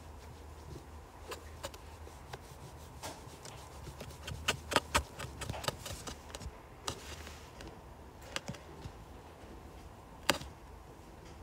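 Sharp taps and clicks on a tablet's glass screen while drawing: a quick cluster of taps about halfway through, then a single tap near the end, over a low steady room hum.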